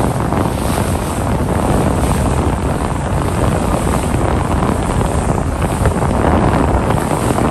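Steady, loud wind buffeting the microphone aboard a fishing boat, a heavy low rumble with the rush of the sea beneath it.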